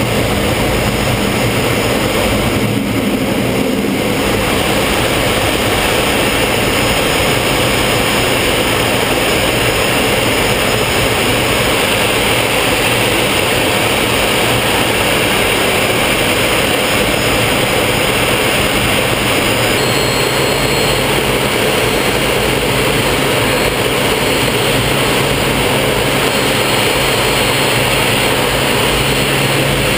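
Folland Gnat's Bristol Siddeley Orpheus turbojet running, heard from inside the cockpit together with rushing air: a loud, steady noise through takeoff and climb-out. A few faint high tones join it about two-thirds of the way in.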